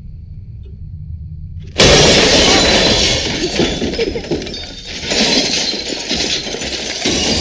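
A low rumble, then about two seconds in a sudden loud crash of breaking glass that runs on as a dense clatter of shattering.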